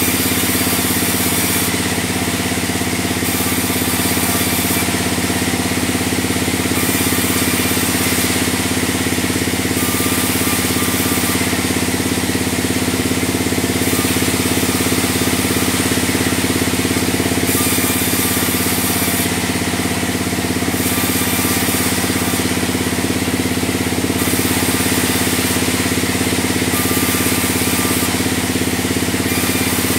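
Large sawmill log bandsaw running with a steady engine-like drone, a hiss in the upper range swelling and easing every second or two.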